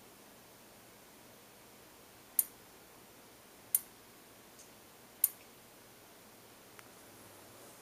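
White Lightning Ultra 1200 studio strobe firing three times, each flash a sharp click, about a second and a half apart as it recycles on Vagabond Mini battery power. A couple of much fainter ticks fall between the flashes.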